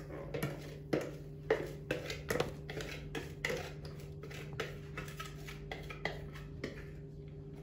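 A whisk scraping and knocking against the inside of a plastic mixing bowl as cake batter is scraped out into a baking dish. There is a quick run of knocks in the first few seconds and fewer, softer ones after that, over a steady low hum.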